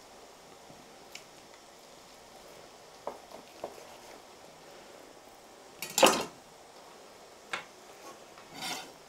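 A kitchen knife and utensils knocking and clattering on a cutting board while pork is sliced into thin schnitzels: a few light knocks, one loud clatter about six seconds in, then a knock and a short scrape near the end.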